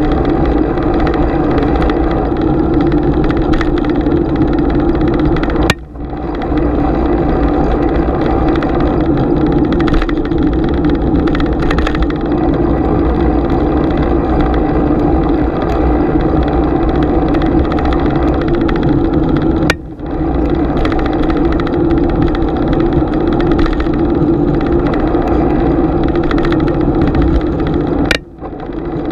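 Steady riding noise of a bicycle filmed with a GoPro: a continuous rumble and hum from wind and the moving bike. It briefly cuts out with a click three times.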